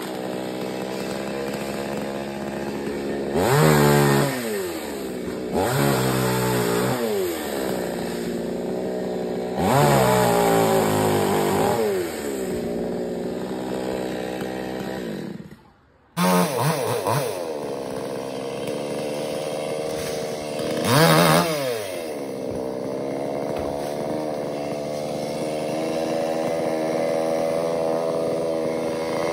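Chainsaw engine idling and revved up in repeated throttle bursts, four main ones, each rising in pitch and falling back to idle. The sound cuts out abruptly for a moment just past halfway.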